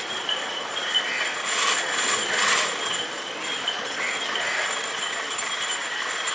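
Outdoor ambience: a steady wash of noise with a faint, constant high-pitched whine, swelling briefly about two seconds in.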